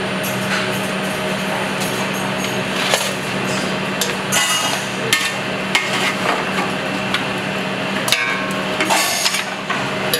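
Busy restaurant kitchen work: frequent sharp knocks, taps and clatter of utensils and pans on hard surfaces over a steady low hum.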